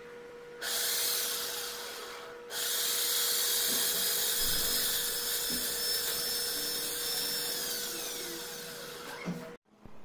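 Washing machine universal motor, its original field core refitted, running at high speed on 32 V DC: a loud hissing whine. It starts about half a second in, drops briefly and picks up again about two seconds in, then slowly fades with its pitch falling near the end.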